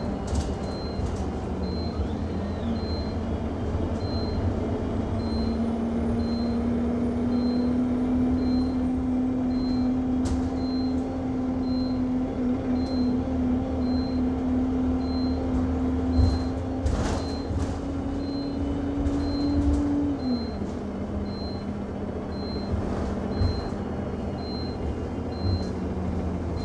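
A high electronic beep repeating about once a second, non-stop, inside an Alexander Dennis Enviro200 MMC single-deck bus, over the bus's running engine. The engine note rises about 3 seconds in and drops about 20 seconds in. A few cabin knocks and rattles come through, the loudest about 16 seconds in.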